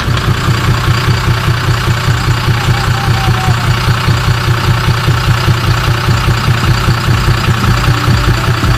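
Volvo Penta D6 inline-six marine diesel engine running at a steady speed, with an even, rapid pulsing of about five to six beats a second.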